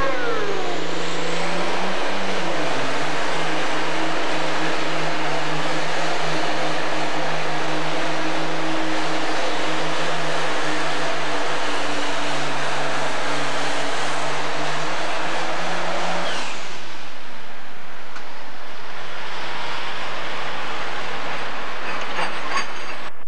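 Pro Stock pulling tractor's turbocharged diesel engine running flat out under load while dragging the weight sled. Its pitch sags about two seconds in, then holds steady. It falls away about 16 seconds in, leaving a much fainter engine sound.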